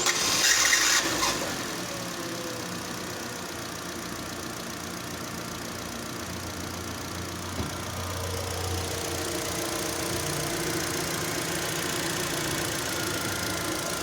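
Cold start of a Duster Oroch's Nissan 1.6 SCe four-cylinder engine: a loud scraping grind from the starter motor during the first second or so as the engine catches, then a steady idle. The scrape comes from the starter motor running short of lubrication and is heard only on the first start of the day.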